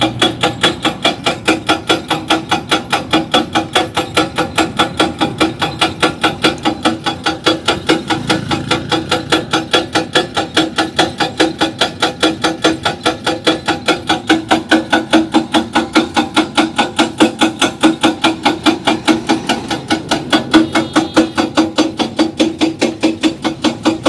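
Hydraulic rock breaker on a Hyundai excavator hammering into rock: a fast, even run of metallic blows, about five a second, that keeps going without a break.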